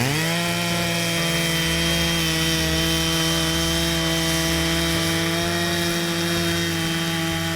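Chainsaw mounted in a small chainsaw mill, ripping a board lengthwise off a log. The engine revs up at the very start, then holds a steady high pitch at full throttle under cutting load.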